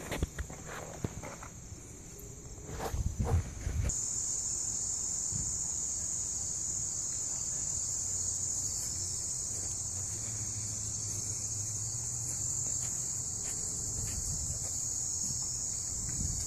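Steady high-pitched chorus of insects, which gets louder about four seconds in. Footsteps and handling knocks are heard in the first few seconds.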